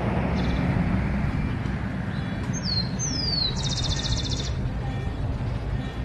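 Rufous-collared sparrow (tico-tico) singing, about midway through. The song is two high, down-slurred whistles followed by a fast, even trill, over a steady low background rumble.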